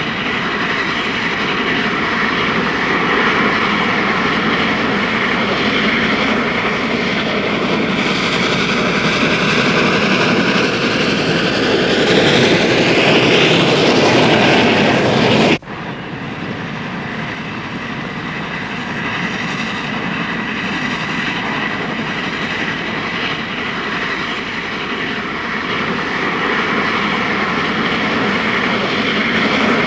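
Steam locomotive running with a train: a dense, steady rush of exhaust and running gear that grows louder over the first half. It cuts off abruptly about halfway through, then resumes and builds again toward the end.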